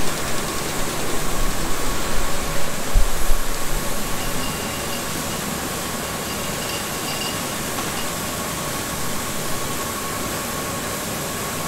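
Steady factory machinery and ventilation noise with a constant hum, with a few low thumps in the first few seconds.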